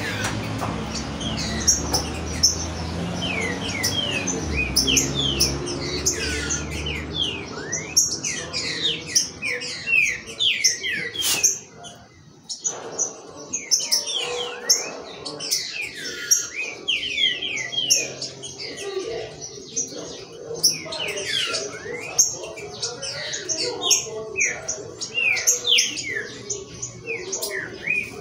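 Caged green-winged saltators (trinca-ferro) singing in their warm-up, several birds overlapping in quick, downward-sweeping whistled notes, with a brief lull about twelve seconds in. A low hum sits underneath for the first several seconds.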